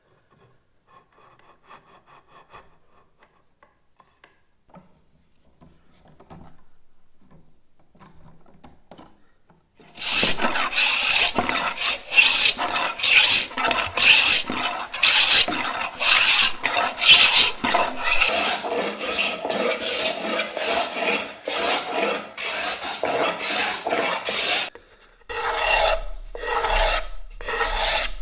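Hand plane shaving an ovangkol panel with quick, repeated rasping strokes, starting about a third of the way in after faint handling sounds. After a short break near the end come slower, separate strokes of a hand scraper on the wood.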